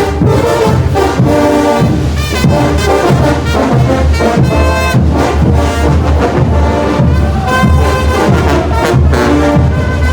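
Bolivian brass band playing: massed brass carrying the tune over a steady, regular beat of low notes.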